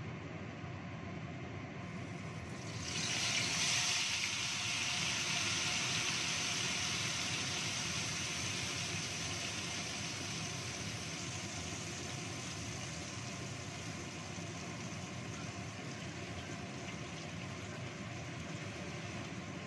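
Ground red chili spice paste hitting hot oil in a wok: a sudden loud sizzle starts about three seconds in, then settles into a steady frying sizzle that slowly grows quieter.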